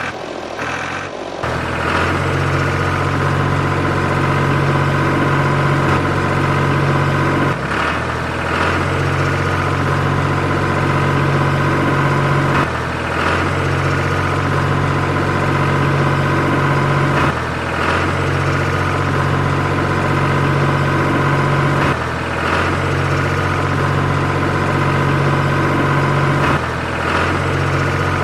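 Steady running sound of a diesel tractor engine, with a short break about every five seconds.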